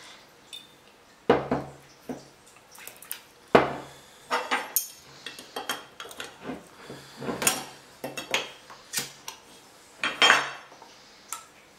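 A string of sharp metal clinks and knocks as the screw band and lid are worked off a home-canned mason jar of tomato sauce.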